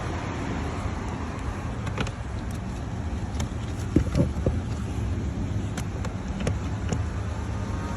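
Toyota Prius petrol engine running with a steady low rumble and a few sharp clicks scattered through it. The car is logging a cylinder 3 misfire (code P0303) along with a P0101 airflow-sensor code.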